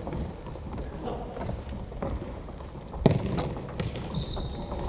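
Futsal ball being kicked and bouncing and players' feet on a gymnasium floor, echoing in the hall, with scattered thuds and one hard kick about three seconds in. A brief high squeak comes a little after four seconds.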